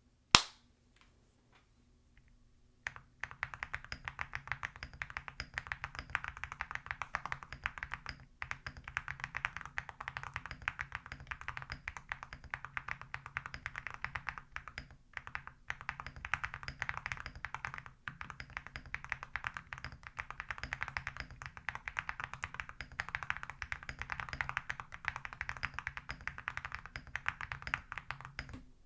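Fast, continuous typing on a custom gasket-mounted mechanical keyboard with a polycarbonate plate, lubed Gateron Root Beer Float switches and ceramic keycaps. It makes a dense stream of light, poppy keystrokes likened to bubble wrap. One sharp click comes just after the start, and the typing begins about three seconds in, with a few brief pauses.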